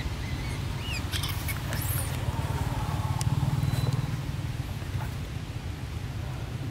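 Low, steady rumble of a motor vehicle running nearby, swelling about three seconds in. A few faint high squeaks come about a second in.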